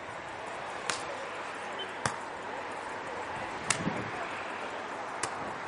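A beach volleyball struck by players' hands and forearms during a rally: four sharp hits, roughly one to one and a half seconds apart, over a steady hiss.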